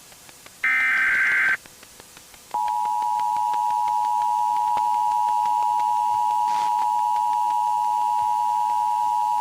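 Emergency Alert System activation: a one-second burst of SAME digital header data, a high warbling data squeal. After a short pause the EAS two-tone attention signal starts about two and a half seconds in and holds as a steady, loud dual tone.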